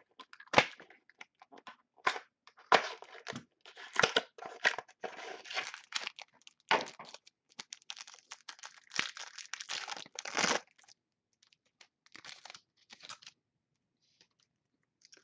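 A trading-card pack's wrapper is torn open and crinkled by hand, and the cards are slid out and shuffled: dense, irregular crackling that thins out after about eleven seconds.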